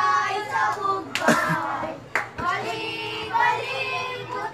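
High-pitched voices calling out in a sing-song way, with two sharp smacks about a second apart, the first a little over a second in.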